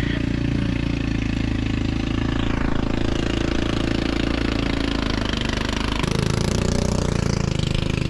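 An engine running steadily, its note changing abruptly about six seconds in.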